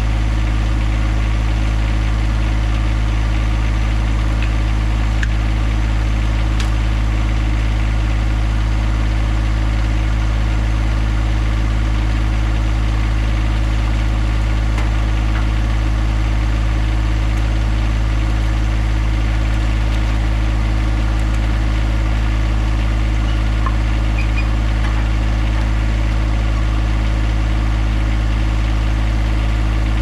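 Compact diesel tractor engine idling steadily, a constant low drone that does not change.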